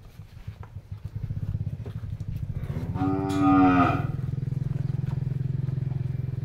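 One loud, drawn-out moo from one of the penned beef cattle about three seconds in, lasting about a second. Under it, a steady low engine drone starts about a second in and keeps on.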